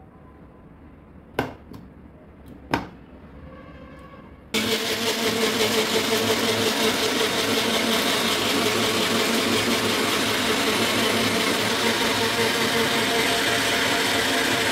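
Personal bullet-style blender blending pomegranate juice: after a couple of sharp clicks, the motor starts abruptly about four and a half seconds in and runs steadily.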